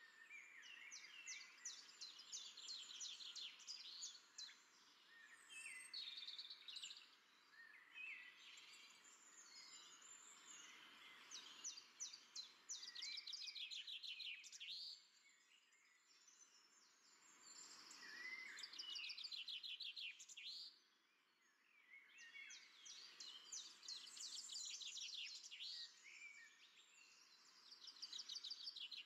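Faint chorus of small birds chirping and trilling in quick runs of notes, over a quiet steady hiss. The birdsong drops away briefly about three quarters of the way through.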